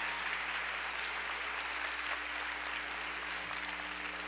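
Large auditorium audience applauding steadily, easing off a little near the end.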